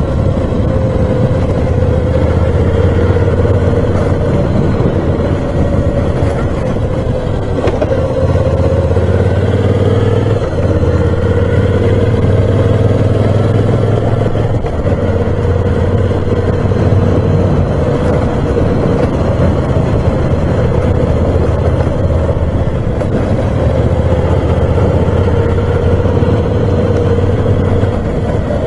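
Moto Guzzi V7 Special's 750 cc air-cooled V-twin running under way. The engine note is steady, dipping about eight seconds in and picking up again a couple of seconds later, as throttle and speed change on a winding road.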